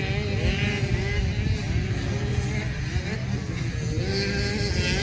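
Motocross dirt-bike engines revving up and down as the bikes race around the track, several engine pitches rising and falling over one another.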